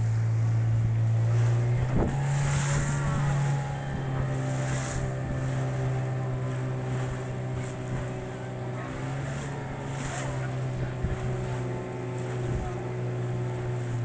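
Motorboat engine running steadily at cruising speed, a low even hum, with water rushing past the hull and wind buffeting the microphone.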